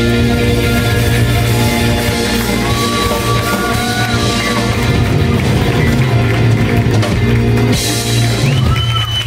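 Live rhythm-and-blues band playing loudly: a woman singing over electric guitars and a drum kit, with long held notes in the middle.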